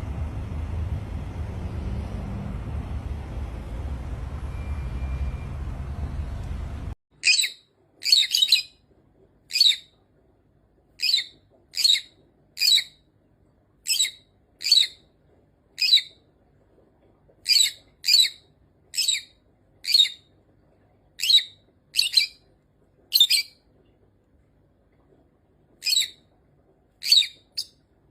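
A steady low noise for about the first seven seconds, which cuts off suddenly. Then a parrot gives short, high chirping calls about once a second, some in quick pairs, with a few short pauses.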